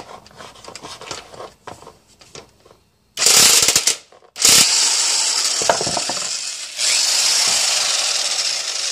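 Impact wrench hammering on a stuck 17 mm oil pan drain plug, working it loose: a few light clicks as the socket is fitted, a short burst about three seconds in, then a longer steady run from about four and a half seconds on.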